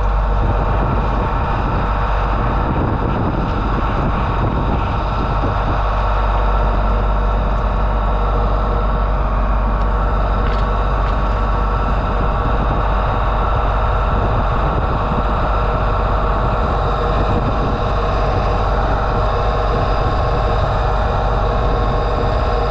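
A 4,000 PSI tow-behind sewer jetter's engine and high-pressure pump running steadily under load while jetting a grease-clogged sewer line.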